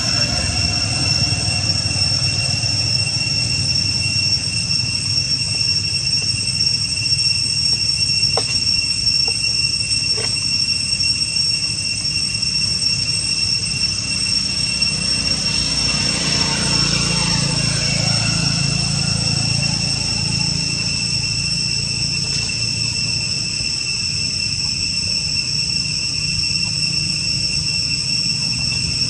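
Insects droning steadily at a high pitch over a continuous low rumble.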